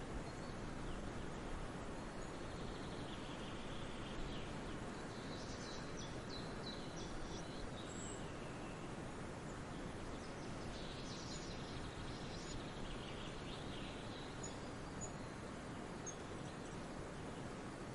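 Songbirds chirping and trilling in short high phrases, in two spells around four to eight seconds in and again around eleven to fourteen seconds in, with a few single high notes between, over a steady outdoor hiss.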